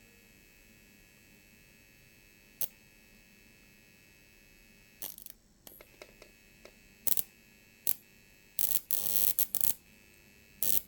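High-voltage arcs from a microwave oven transformer's output, driven by a small square-wave UPS: brief sharp snaps at irregular intervals, then a longer run of buzzing arcs near the end. Beneath them is a steady faint high whine from the UPS inverter and transformer.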